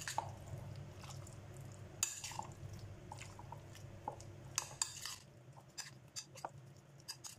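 A utensil clinking and scraping against a mixing bowl in irregular light knocks as chicken is stirred through its spiced yogurt marinade.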